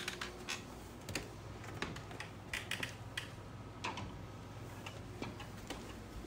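Footsteps going down carpeted stairs: faint, irregular soft taps and clicks, one or two a second.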